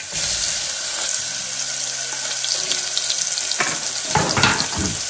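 Chopped onions hitting hot oil with cumin seeds in a steel pot and sizzling steadily, a loud frying hiss that starts as they go in. Near the end a few knocks and scrapes of the spatula stirring them.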